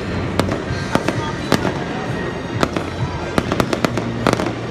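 Aerial fireworks going off in an irregular string of sharp bangs, bunching most densely between about three and a half and four and a half seconds in.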